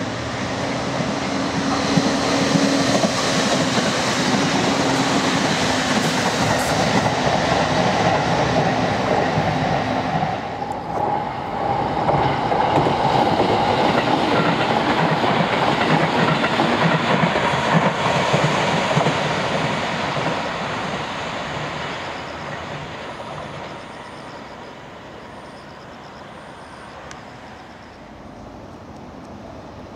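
JR East 701 series electric train running past on the rails: a dense rumble of wheels on track with a steady low tone under it. The sound dips briefly about ten seconds in, swells again, then fades away over the last ten seconds as the train recedes.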